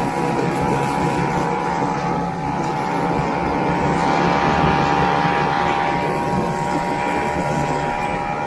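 Single-cylinder two-stroke engine of a 1969 Ski-Doo Olympique 320cc snowmobile running steadily at cruising speed.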